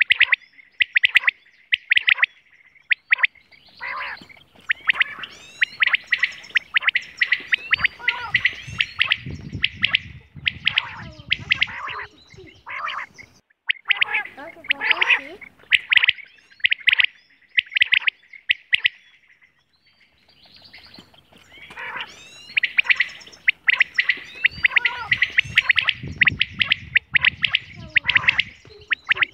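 Common quail (batair) calling: bouts of sharp, rapidly repeated notes, broken by short pauses.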